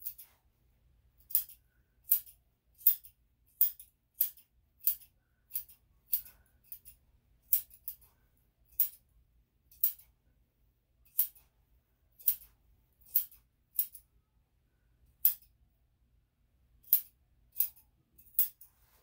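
Grooming shears snipping through a dog's leg fur: about twenty crisp, high snips, roughly one a second at an uneven pace with a few short pauses.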